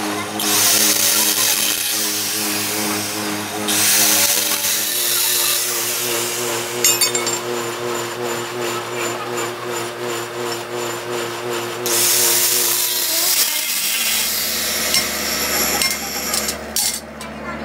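Electric angle grinders working the steel of truck brake shoes: a steady motor hum with several short passes of harsh grinding as the disc meets the metal, and the motor's pitch shifts about five seconds in.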